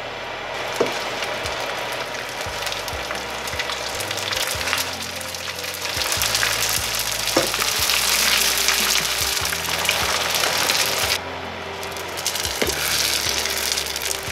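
Dried pollock skins deep-frying in oil at about 180 °C: a loud, crackling sizzle. It starts about half a second in, drops away for a moment about eleven seconds in, and then picks up again.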